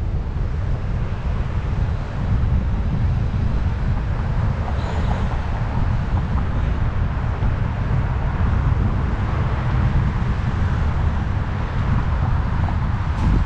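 Wind buffeting the microphone of a moving bicycle, with road traffic running alongside; a brief knock near the end.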